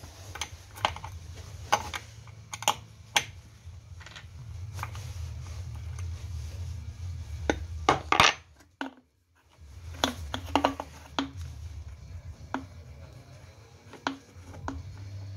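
Scattered metallic clinks and taps of hand tools against the parts of a small lawnmower carburetor held in a bench vise as it is taken apart, over a steady low hum.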